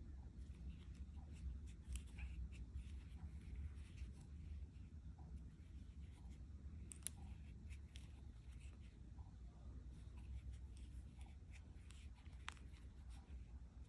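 Faint rubbing and scattered light ticks of a crochet hook pulling cotton yarn through stitches, over a steady low hum.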